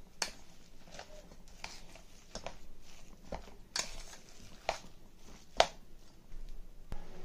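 A hand mixing raw minced chicken with chopped coriander, mint and spices in a steel bowl: irregular soft squishes and clicks, the loudest about five and a half seconds in.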